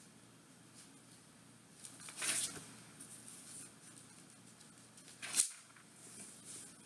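Paper rustling as book pages are turned: two short, soft swishes about three seconds apart.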